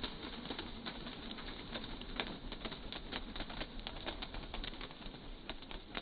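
Pigeons' wings flapping and clapping as they burst out of an open crate and take off: an irregular patter of sharp claps, several a second.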